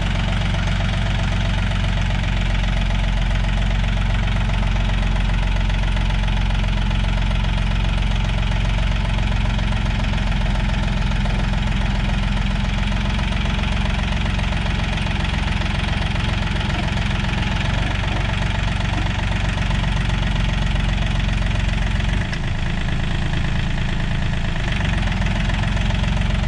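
John Deere 5036 EN tractor's diesel engine running steadily under load as the tractor pulls a tillage implement through soil, with a slight change in its low hum about 22 seconds in.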